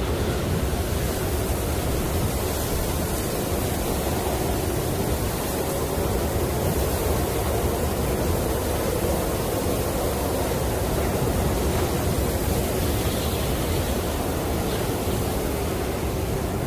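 Snowstorm wind blowing steadily with driven snow, a continuous low rushing noise with no gusts or breaks.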